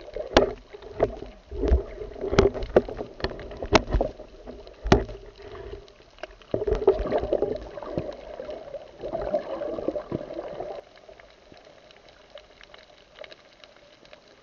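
Water sloshing and gurgling around a camera held in the water during a night free dive, with a run of sharp knocks in the first five seconds. It goes much quieter near the end.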